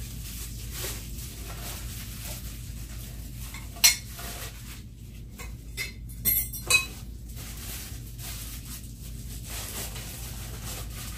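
Welded metal tube frame pieces of flat-pack furniture clinking and knocking together as they are handled. There is one sharp clank about four seconds in and two more a couple of seconds later.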